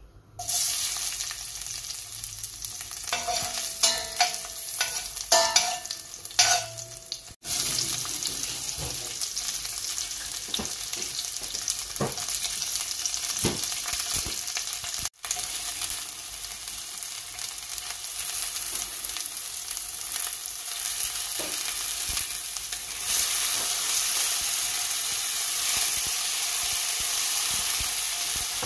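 Garlic, onion and tomato sizzling in hot oil in a stainless steel pot. There are a few ringing metallic clinks against the pot about three to seven seconds in, and the sizzle grows louder about three-quarters of the way through as more vegetables go in.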